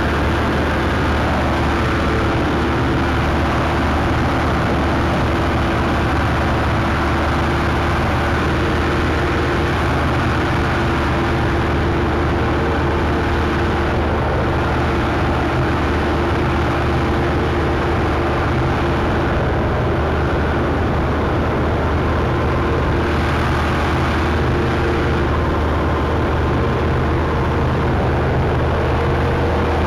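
Combine harvester running steadily while harvesting grain: a constant engine and machinery drone with a steady low hum.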